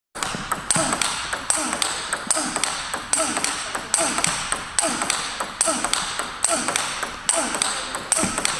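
Table tennis ball in a fast forehand topspin rally, ticking off the paddles and bouncing on the table. Louder strikes come about every 0.8 s with softer ticks between them.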